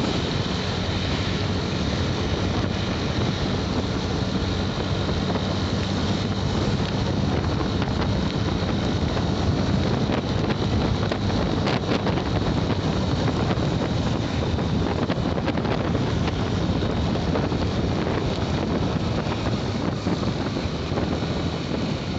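A motorcycle riding at a steady speed, heard as a steady rush of wind buffeting the microphone with the engine's low, even hum underneath.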